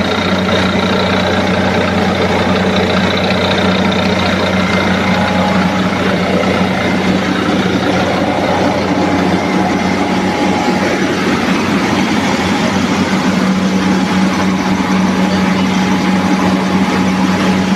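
NG 25D combined rice milling machine running steadily, a constant low mechanical hum and rumble with no change in speed.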